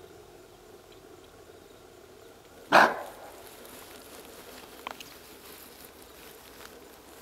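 Bushbuck giving one loud, sharp alarm bark about three seconds in, the call it makes when it spots a predator such as a leopard. A few faint clicks follow.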